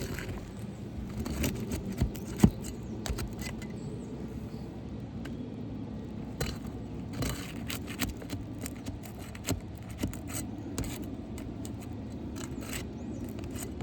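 Scraping and scattered sharp clicks of hands and a tool working under asphalt roof shingles, prying at a nail that won't come out. The loudest is a single sharp click about two and a half seconds in, over a steady low background hum.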